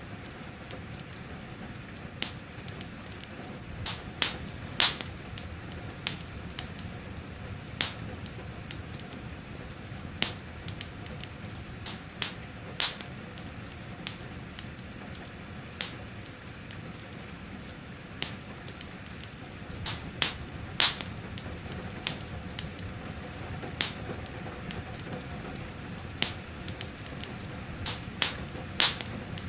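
Wood fire in a fireplace crackling, with irregular sharp pops every second or two, a few much louder than the rest, over a steady soft hiss of gentle rain.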